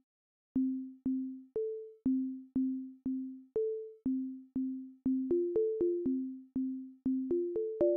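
Background music of short plucked notes in a simple low melody, about two notes a second, becoming busier with overlapping notes from about five seconds in.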